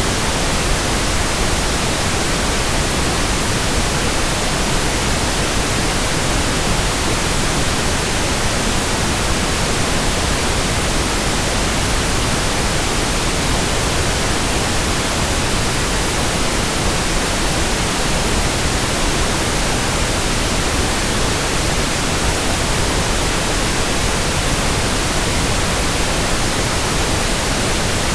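Steady, unbroken pink noise: an even hiss spread from the lowest to the highest pitches, with no tones, rhythm or changes in level.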